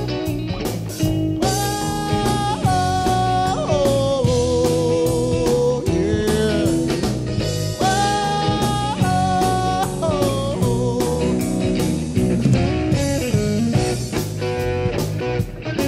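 Live blues-rock band playing an instrumental break: electric guitar lead with long held notes that bend up and waver with vibrato, over bass guitar and a steady drum beat.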